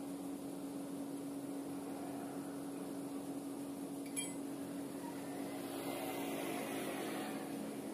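Steady mechanical hum, with a single sharp click about four seconds in. A motor scooter passes, its noise swelling from about five and a half seconds and fading again near the end.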